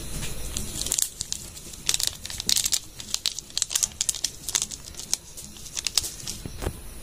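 Foil Maggi masala sachet crinkling in the hand as it is handled and emptied over the pan: a run of sharp crackles that starts about a second in and stops shortly before the end.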